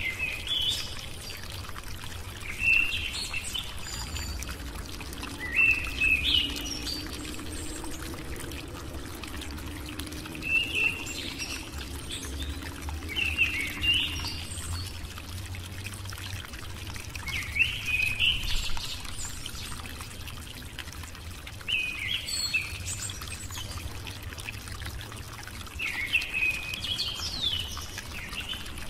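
Short bird chirps in small clusters every few seconds, over a steady low background hiss and hum.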